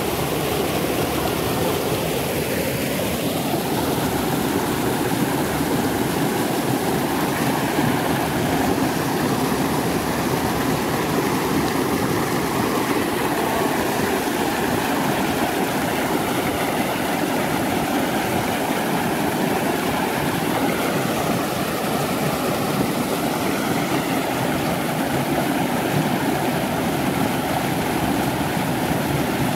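Small creek waterfall pouring over a rock ledge: a steady, close rush of falling water.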